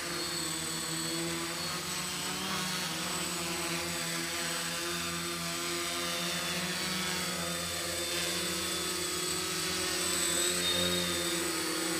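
Homemade BoxCopter multirotor's electric motors and propellers buzzing steadily while it skims across the water, the hum wavering slightly in pitch and getting a little louder about ten seconds in.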